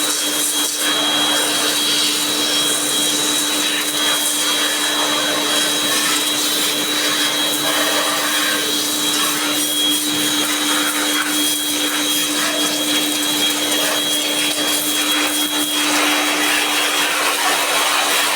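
An electric cleaning machine's motor running steadily, with a constant hum and a high whine over a rushing noise; the sound turns harsher about sixteen seconds in.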